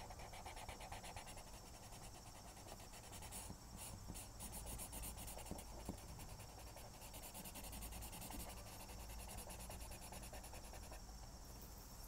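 Felt-tip marker scrubbing back and forth on paper in rapid strokes while coloring in an area. The strokes stop about a second before the end.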